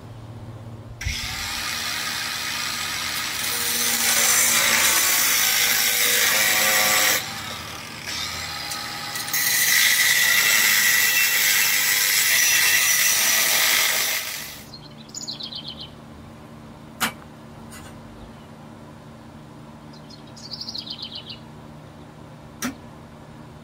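Angle grinder grinding on a steel frame. It runs for about thirteen seconds with a steady high whine under a loud hiss, lightens briefly midway, then stops. A couple of sharp clicks follow.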